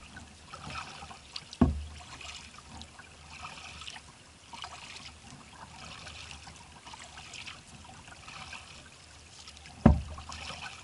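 Water trickling and dripping in a loose rhythm of paddle strokes on a kayak, with two sharp knocks, one about a second and a half in and one near the end.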